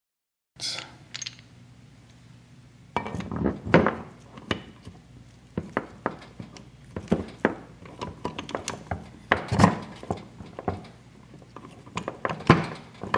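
Irregular metallic clinks and knocks of engine parts and tools being handled during work on a dirt-bike transmission, over a faint steady low hum.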